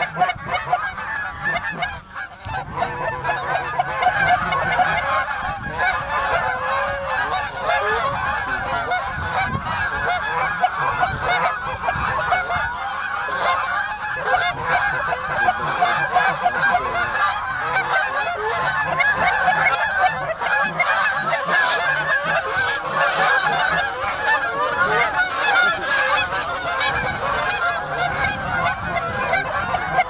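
A large flock of geese calling: a dense, unbroken chorus of many overlapping honks.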